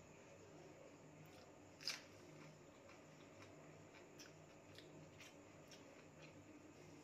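Quiet eating sounds: faint chewing and small utensil clicks, with one sharp clink about two seconds in, a spoon against the steel plate.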